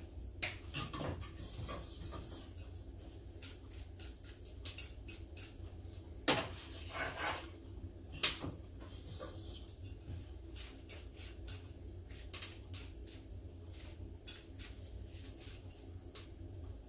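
Steel plane iron and its honing guide handled on sharpening plates: scattered light clicks and taps of metal on the plate, with a couple of louder rubbing strokes about six and eight seconds in as the last of the burr is taken off the back.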